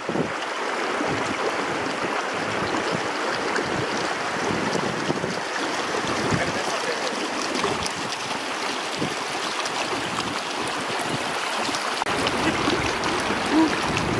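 Shallow, fast-flowing mountain river rushing steadily over rocks and boulders, with a strong current.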